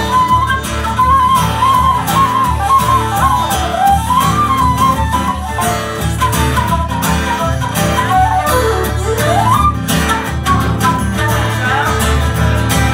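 Live country music instrumental break: a flute plays a stepping melody, sliding down and back up about two-thirds of the way through, over two strummed acoustic guitars.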